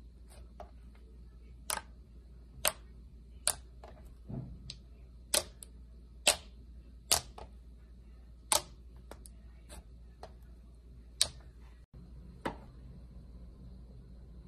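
Slime being worked by hand close to the microphone, giving about a dozen sharp, irregular pops and clicks with one duller squelch a little after four seconds in.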